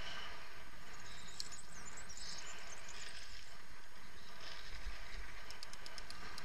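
Mountain bike rolling fast downhill on asphalt: steady wind rush over the camera microphone with tyre noise, and a quick run of light clicks near the end.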